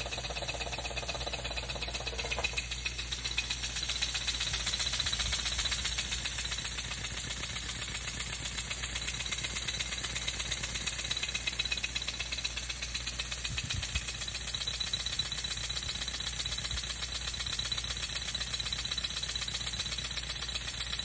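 Small brass oscillating-cylinder model engine running on compressed air from a shop air hose, running really fast: a rapid, even rattle of exhaust puffs with hissing air.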